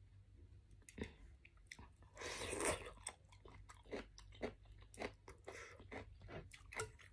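Close-up chewing of a mouthful of spicy Liuzhou snail rice noodles (luosifen): a run of short wet mouth clicks and smacks, several a second, with one louder noisy burst of under a second about two seconds in.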